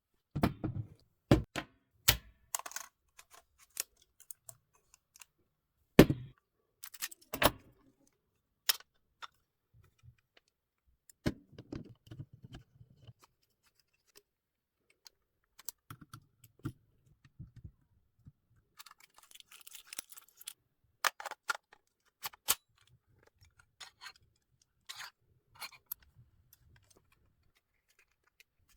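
Camera rig parts being handled and fitted together: scattered sharp clicks, taps and knocks with quiet gaps between them. The loudest knock comes about six seconds in, and a short rattling rustle comes about twenty seconds in.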